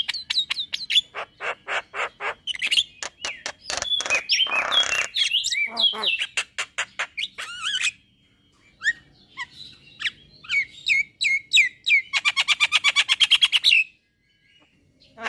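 Male Javan myna singing, a varied run of sharp clicks, chips and whistled notes. A harsh screech comes about four and a half seconds in, and a fast rattling burst near the end.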